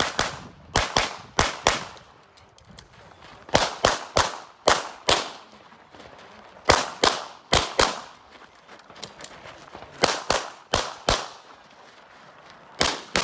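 Production-division semi-automatic pistol fired in quick pairs and short strings of two to four shots, with brief pauses between strings. Each shot cracks sharply and rings briefly afterwards.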